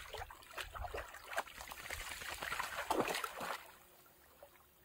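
A dog wading in shallow creek water, sloshing and splashing irregularly; the splashing dies away about three and a half seconds in.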